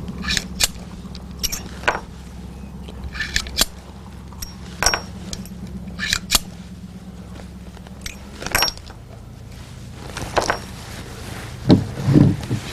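Scattered sharp metallic clinks and clicks, about a dozen, typical of handling a big-bore revolver and its brass cartridges between shots, over a steady low hum.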